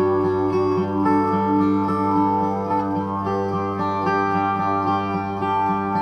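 New-age meditation music: long held tones over a steady low drone, with short notes repeating underneath.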